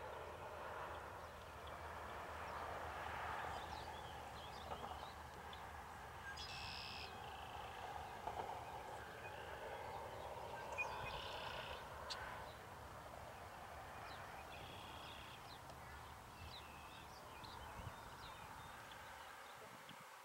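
Faint low rumble of distant diesel freight locomotives moving slowly, with birds calling a few times over it.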